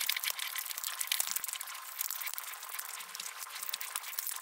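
Rapid, close-miked crackling and clicking of a steamed black tiger prawn's shell being peeled and its meat pulled apart by gloved hands.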